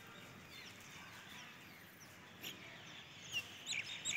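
Faint outdoor background with a handful of short, high chirps from small birds, starting about halfway through and coming closer together near the end.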